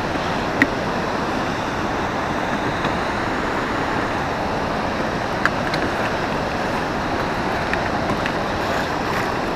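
Steady rushing noise of wind and water around an open fishing boat on the river, with two short sharp clicks, one about half a second in and one about five and a half seconds in.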